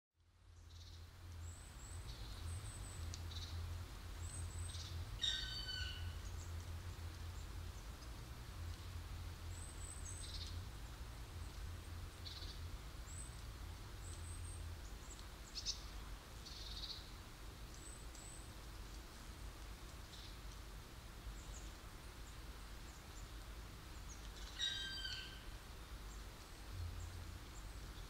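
A black woodpecker (Dryocopus martius) calling twice, about twenty seconds apart, each a drawn-out call under a second long. Faint, short, high chirps from small birds come in between, over a steady low background rumble.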